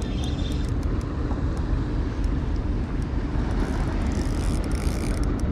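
Steady low wind rumble buffeting an action camera's microphone, with a faint low hum and scattered light ticks from a spinning reel being wound in.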